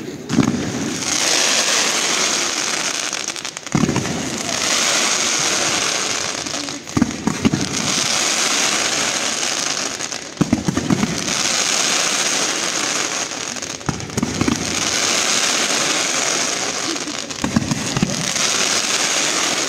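Fireworks display: a shell bursts with a deep bang about every three and a half seconds, and each bang is followed by two or three seconds of dense crackling.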